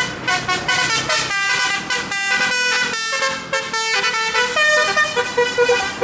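Tour coach's telolet horn, a multi-tone musical horn, playing a fast tune of short notes that step up and down in pitch.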